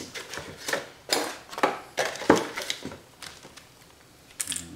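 Handling noise from a camcorder and its accessories being picked up and turned over: a series of short clicks and knocks over the first three seconds, then quieter.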